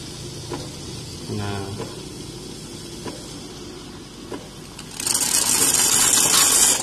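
Otten 708 automatic espresso machine steaming milk through its suction-tube frother into a steel jug: a steady pump hum with a soft hiss. About five seconds in, a much louder hiss starts and cuts off abruptly near the end, as the frother is worked to build thick milk foam.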